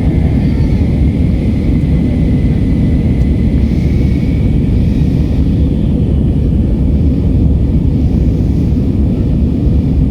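Airbus A319 cabin noise in flight: a steady, loud low rumble of the jet engines and airflow, with a faint steady whine above it.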